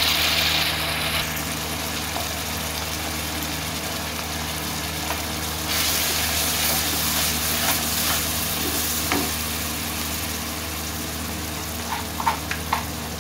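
Onions and spices sizzling in hot oil in a karahi while a wooden spatula stirs them, the hiss swelling twice, over a steady low hum. A few short knocks near the end.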